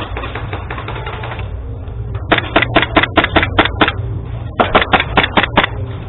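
Airsoft gun firing in two quick strings of shots, about five or six a second: eight shots starting about two seconds in, then six more after a short pause. A fainter, faster clatter of clicks fills the first second and a half.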